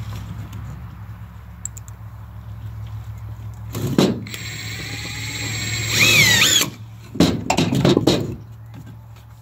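A cordless drill drives screws into 2x4 lumber: its motor whines for a couple of seconds from about four seconds in, then speeds up briefly before stopping. A few wooden knocks follow, over a low steady hum.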